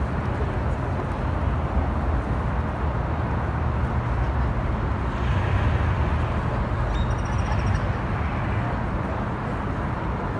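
City street ambience: steady traffic noise with a low rumble, and a brief high-pitched chirp about seven seconds in.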